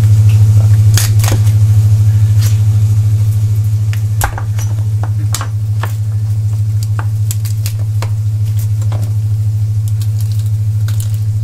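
Steady, loud low hum, with scattered sharp clicks and knocks from a chef's knife and lobster shell on a plastic chopping board as a freshly killed lobster is cut and broken apart; one heavier knock comes about four seconds in.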